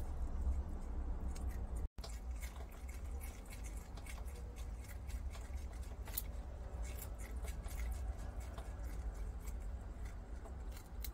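Two prairie dogs chewing pieces of sweet pumpkin (kabocha): rapid, irregular small wet clicks of their nibbling, over a low steady hum. The sound cuts out for an instant about two seconds in.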